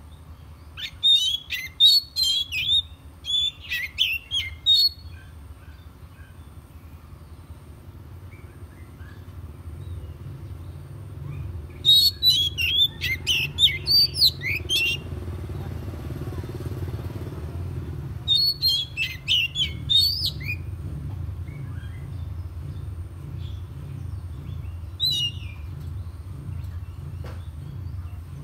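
Oriental magpie-robin singing four bouts of quick whistled and chirping phrases, separated by pauses of several seconds. A steady low rumble runs underneath and grows louder in the middle.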